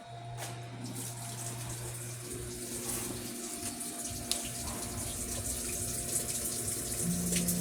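Water rushing through a Daewoo washing machine, with a steady electrical hum underneath from its motor or valve. A second, higher hum joins about seven seconds in.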